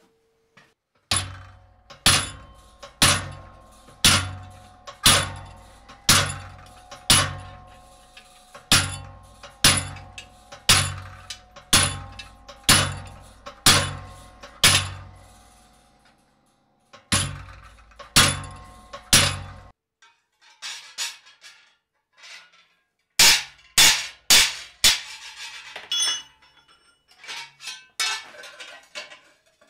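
Treadle hammer driving a cold chisel through a steel sheet-metal plate, about one blow a second, each a deep thud with the plate ringing between blows. After a short pause, a quick flurry of sharper, lighter hammer blows on steel, then scattered taps near the end.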